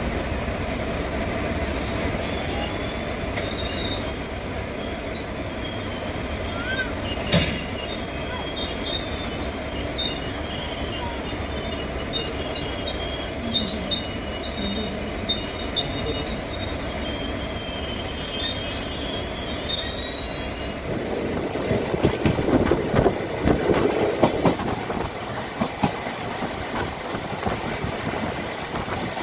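Passenger train coaches running on the track, a steady rumble under a high-pitched wheel squeal that starts about two seconds in and cuts off about twenty seconds in. After the squeal stops, the wheels clatter and knock irregularly.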